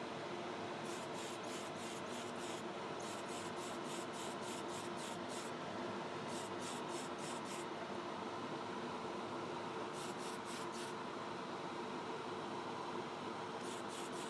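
Spray booth fan humming steadily under runs of short, rapid hisses of clear coat being sprayed onto a model car body, about four or five spurts a second, stopping and starting five times.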